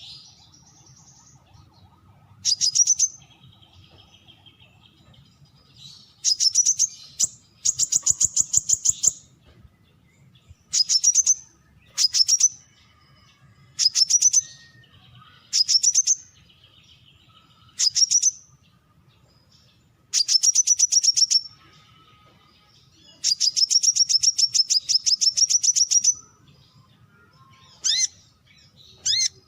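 Brown-throated sunbird calling: about a dozen bursts of rapid, high, sharp chirping notes, most under a second long, a few running two to three seconds, with short pauses between them.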